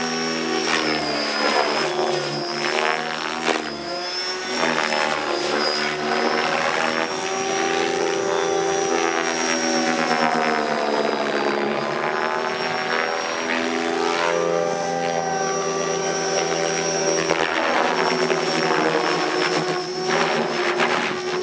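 Compass 7HV electric RC helicopter in aerobatic flight. A high steady whine sits over the beat of the rotor blades, and its pitch sweeps up and down as the helicopter manoeuvres and passes.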